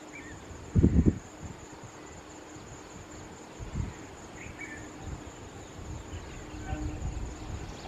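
Steady high-pitched chirring of insects, with a few short faint bird-like chirps. Low buffets of wind on the microphone come through, the strongest about a second in.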